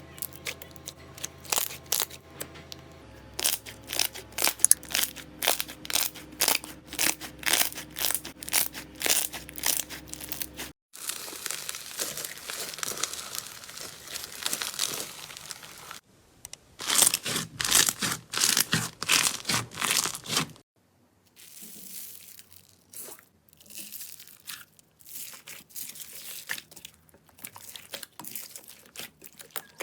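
Slime being squeezed, pressed and pulled apart close to the microphone in a run of short clips: rapid crackling and popping, a stretch of steady rustling, then louder crunching bursts and softer crackles.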